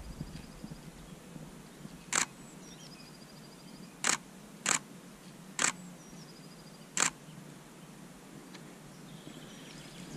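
A camera shutter fires five single shots at irregular intervals, from the camera body behind a camouflage-wrapped telephoto lens. Between the shots, a small bird repeats a high, rapid trilled song.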